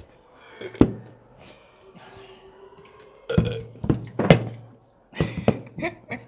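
A man burping after gulping a fizzy energy drink, in two bouts in the second half. A single sharp thunk sounds about a second in.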